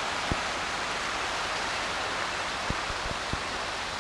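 Rain-swollen creek rushing in flood, a steady even rush of water, with a few short low thumps on the microphone.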